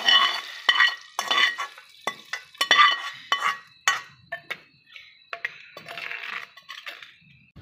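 Metal spoon scraping and knocking against a metal frying pan, a quick run of sharp ringing clinks, as a tadka of oil, red chillies and garlic is emptied into the daal. The strikes thin out after about four seconds, with softer scraping and stirring near the end.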